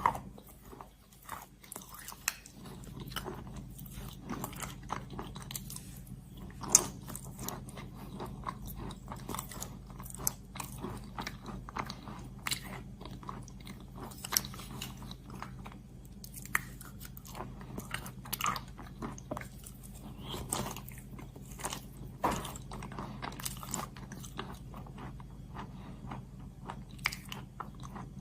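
Close-miked biting and chewing of something crunchy: irregular crunches and crackles one after another, over a steady low hum.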